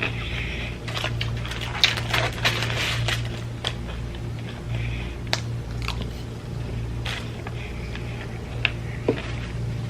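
Close-miked chewing and mouth sounds of someone eating fast food, with irregular crunches and a few sharp clicks, over a steady low hum.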